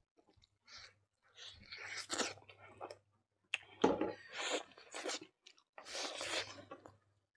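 Chewing a mouthful of rice and chicken curry eaten by hand, in irregular bursts separated by short pauses.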